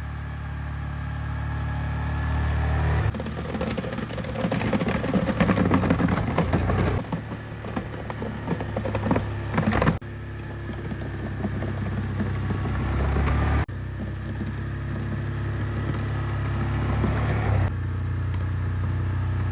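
A four-wheeler's engine running steadily under load as it pushes heavy, wet snow with its plow, building up repeatedly. Through the middle there is a stretch of dense crunching and clattering. The sound cuts abruptly several times.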